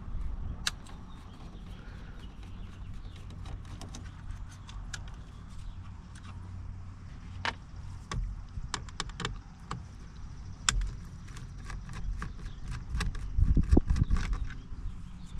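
Scattered light clicks and taps of a screwdriver and small screws as the trim screws are taken out of a steering wheel, with a cluster of louder low thumps near the end.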